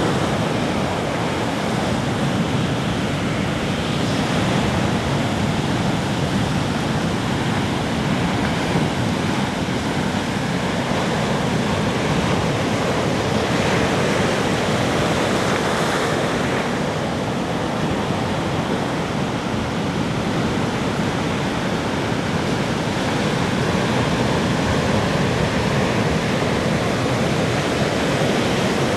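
Ocean surf breaking and washing onto a beach: a steady rush of water noise, with waves swelling louder now and then.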